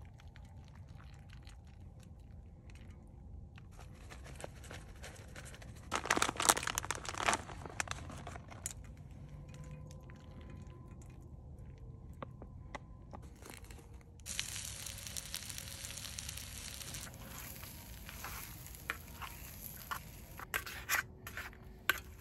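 Plastic shredded-cheese bag crinkling and rustling as cheese is shaken out over food in a pan, with loud crackly bursts about six seconds in and a hissing rustle later. Near the end a fork clicks and scrapes against the pan as the food is stirred.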